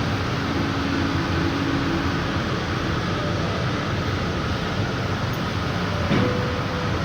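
Steady rushing background noise of a large store interior, like ventilation or air handling, with a brief knock about six seconds in.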